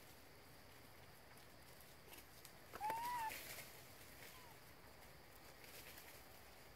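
A single short, clear animal call about halfway through, rising and then holding steady for about half a second, followed a second later by a much fainter short call, over quiet forest background.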